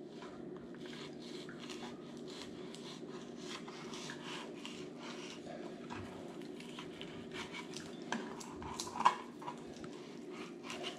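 Kitchen knife scraping and clicking against a plastic cutting board in many short strokes as it is worked between a snakehead fillet's skin and flesh to skin it, with one louder knock about nine seconds in. A steady low hum runs underneath.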